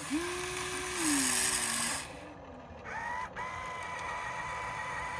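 Small geared electric motors of a Huina 1594 radio-controlled toy excavator whining as it moves. The pitch drops about a second in, and a higher steady whine starts about three seconds in.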